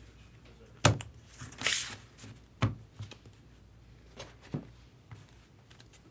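Hands handling a stack of baseball cards on a table: three sharp knocks, about one, two and a half, and four and a half seconds in. A brief rustling swish comes between the first two, with a few lighter ticks.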